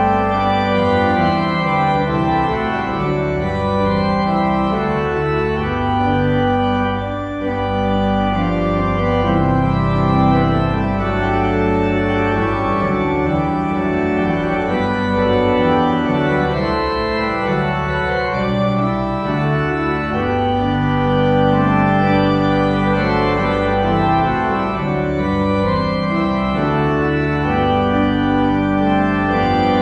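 Organ music: slow, sustained chords that change every second or so over a steadily held bass.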